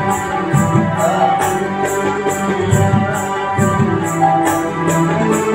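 Music played on an electronic arranger keyboard with its built-in rhythm accompaniment: held melody and bass notes over a steady, high tapping beat about three times a second.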